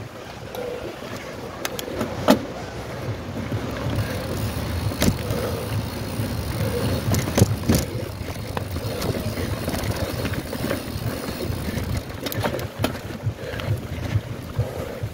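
A mountain bike riding over a rough dirt trail, with wind rushing on the microphone, the steady rumble of the ride, and several sharp knocks as the bike jolts over bumps.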